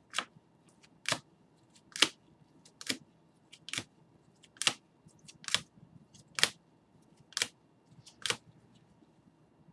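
Rigid plastic toploaders holding trading cards clicking against each other as they are flipped through one at a time: a sharp click about once a second, ten in all.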